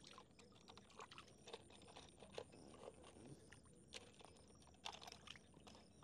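Faint, scattered small splashes and drips of water as a toy excavator is dipped and rinsed by hand in a shallow pool.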